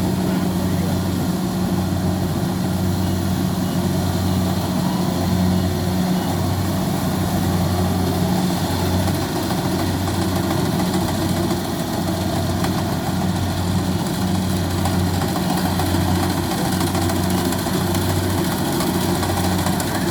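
Kubota combine harvester's diesel engine running steadily with a deep, even hum.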